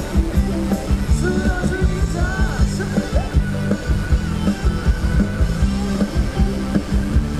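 Thai ramwong dance music from a live band over loudspeakers, loud, with a heavy, steady bass beat and a wavering melody line on top.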